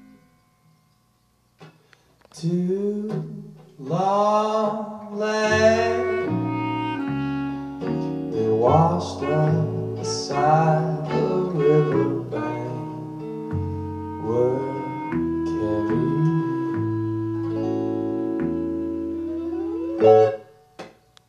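A small band playing a song: singing over guitar, Fender Mustang electric bass and clarinet, starting after about two seconds of silence. It breaks off briefly near the end.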